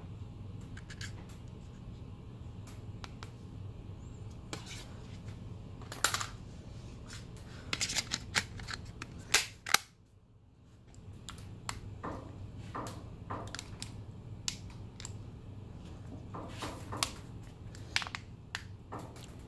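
A plastic smartphone being gripped and bent by hand, giving scattered sharp clicks and snaps, with a cluster of louder snaps about halfway through.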